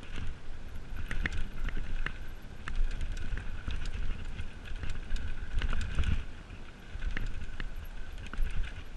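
Mountain bike riding down a rough dirt singletrack: tyres rolling over dirt and stones, with the bike's chain and frame clattering in many irregular sharp clicks over a low rumble and a steady high buzz.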